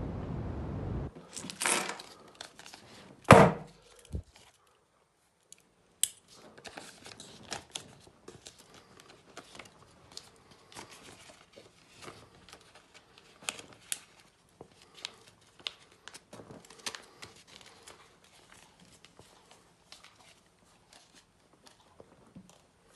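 Handcuffs being escaped with a whack attack: about a second of steady hiss, then a few sharp knocks of the cuffs striking something hard, the loudest about three seconds in, followed by a long run of small irregular clicks and rattles from the cuffs.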